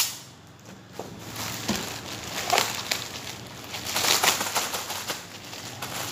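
Plastic packaging, bubble wrap and a poly mailer bag, crinkling and rustling in irregular bursts as a wrapped parcel is handled and unwrapped.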